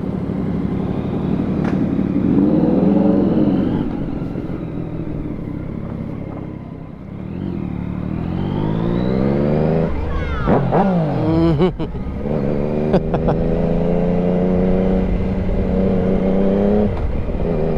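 Yamaha MT sport motorcycle engine running and being revved: it climbs and falls about two seconds in, rises gradually, blips sharply about ten seconds in, then runs steadily at a raised idle. The bike has a freshly tuned fuel map.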